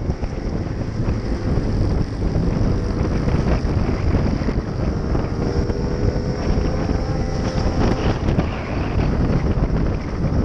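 Wind buffeting the microphone of a Gilera scooter riding at road speed, with the engine and tyre noise running steadily underneath; a faint steady engine note comes through for a few seconds in the middle.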